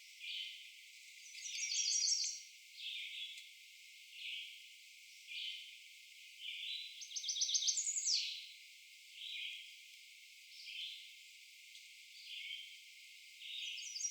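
An American redstart sings three times, short runs of rapid high notes, over a red-eyed vireo steadily repeating its short, separated song phrases about once a second.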